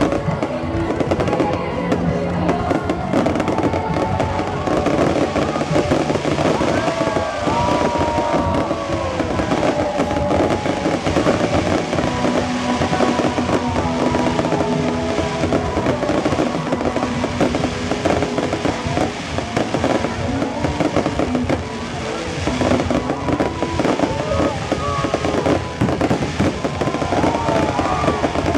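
Fireworks display with bangs and crackling in rapid, continuous succession, with music and voices mixed in.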